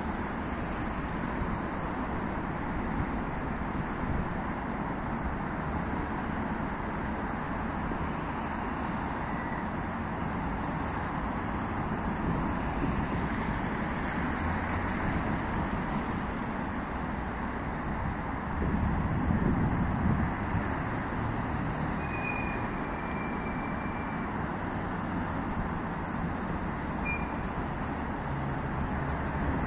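Steady road traffic on a wide multi-lane avenue, cars driving past, with one vehicle passing louder for about two seconds around two-thirds of the way through.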